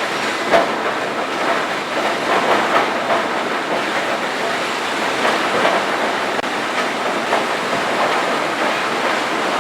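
Industrial horizontal wood grinder running and grinding biomass feedstock: a loud, steady mechanical din with irregular clattering knocks, one sharp knock about half a second in.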